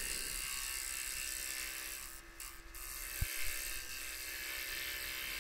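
Electric scroll saw running, its reciprocating blade cutting through a stack of birch plywood: a steady buzz, with a single knock a little after three seconds in.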